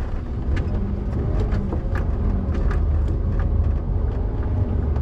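HGV diesel engine running at low speed, heard from inside the cab as the truck turns slowly, with a steady low rumble and scattered light clicks and rattles.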